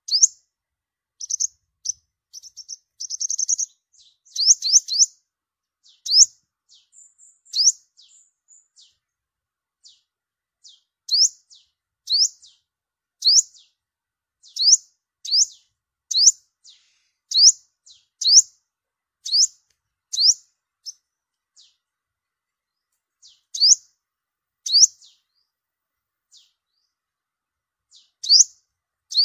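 Yellow-bellied sunbird calling: sharp, high, upward-sweeping chips repeated about once a second, with a quick run of notes a few seconds in.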